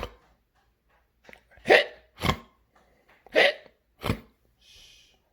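A person's voice hiccuping, acted for a toy character: about five short hiccups at uneven intervals.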